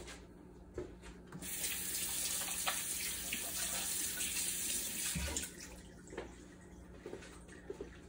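Kitchen tap running while hands are washed, turned on about a second and a half in and shut off after about four seconds.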